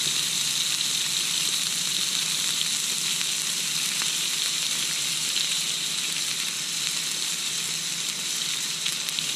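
Cut-up raw bacon frying in a hot skillet: a steady sizzle with scattered small pops.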